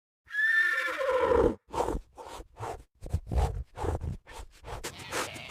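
A horse whinnying once, a loud call that falls in pitch over about a second, followed by a string of short, rough sounds about three a second.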